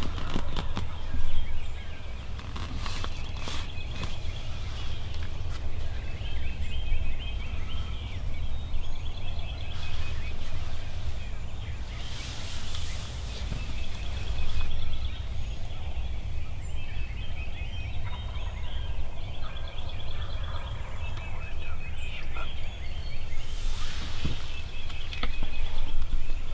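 Wild turkey gobbling a couple of times, about halfway through and again near the end, over a steady low rumble.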